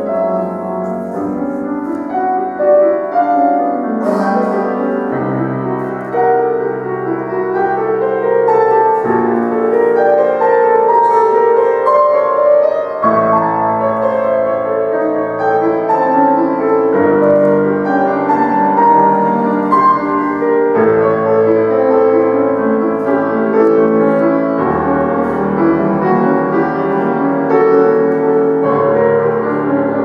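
Solo classical piano played on a concert grand: a continuous flowing passage, with the bass notes changing about every four seconds.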